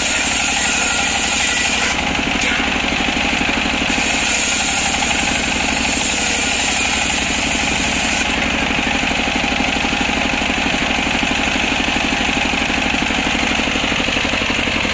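Belt-driven circular saw bench powered by a stationary engine running steadily, its blade ripping through waru (sea hibiscus) planks. A higher cutting noise rides over the engine drone in the first two seconds and again from about four to eight seconds in.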